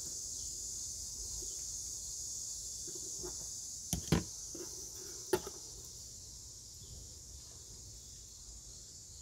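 Three sharp plastic clicks, two close together about four seconds in and one more over a second later, as a trim removal tool pries out the Dodge Durango tail lamp's plastic push fastener. A steady high insect chirring runs underneath.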